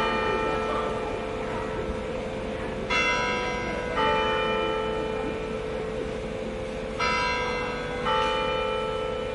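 Church bells of Notre-Dame Cathedral, Luxembourg City, ringing. The strikes come in pairs about a second apart, a new pair every four seconds or so, and each rings on with a long hum between strikes.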